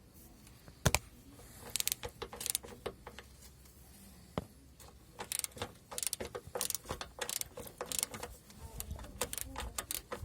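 Metal hand tools at work: one sharp metal clank about a second in, then a ratchet wrench clicking in short quick runs, on the bracket bolts of the van's front anti-roll bar bushings.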